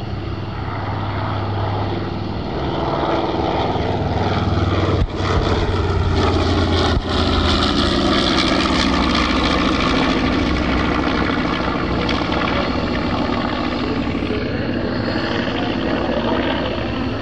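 A B-25 Mitchell's twin Wright R-2600 radial engines in a low, fast flyby. The propeller and engine noise swells as the bomber closes in, then the pitch drops as it passes and heads away.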